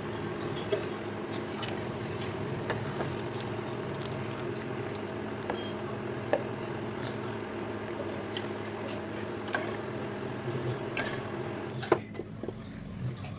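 A steady mechanical hum with scattered light clicks. The hum drops away about twelve seconds in, around the loudest click.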